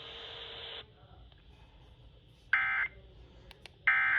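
Emergency Alert System end-of-message data bursts on a NOAA Weather Radio broadcast: two short, identical buzzy digital bursts about a second and a half apart, the signal that closes the severe thunderstorm warning. Just before them, about a second of steady radio hiss cuts off.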